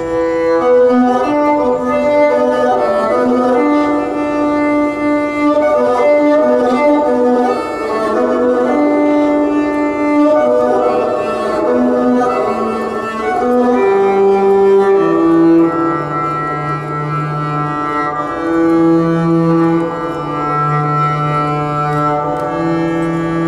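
Earth harp's long strings stroked by hand, sounding sustained cello-like notes. A busy run of shifting notes over a low line gives way, a little past halfway, to long held low notes.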